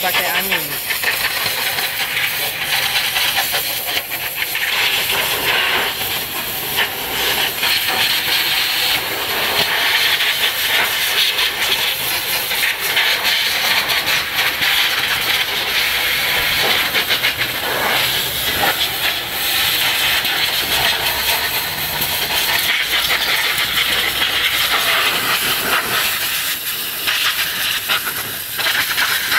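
Hand-held spray gun with a long nozzle hissing steadily as it is played over a freshly washed engine bay, the sound swelling and dipping a little as the nozzle moves.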